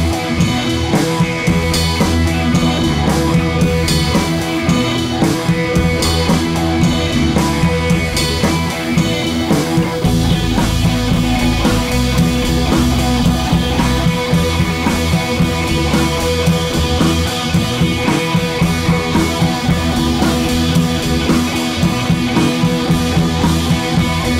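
Background rock music with drums, guitar and bass, a steady beat throughout.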